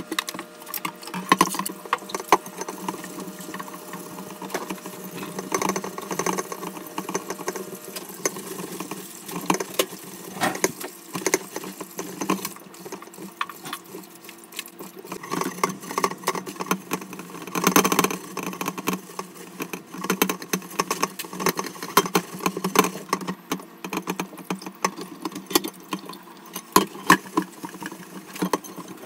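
Stainless steel pots being scrubbed by hand in a stainless steel sink: many irregular metallic clanks, knocks and scraping rattles over a steady low hum.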